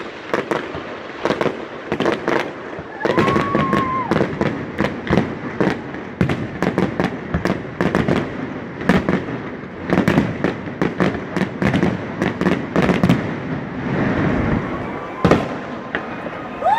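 Aerial fireworks bursting: many sharp bangs at irregular intervals, some in quick clusters, over a continuous rumble. A brief whistling tone rises and falls about three seconds in.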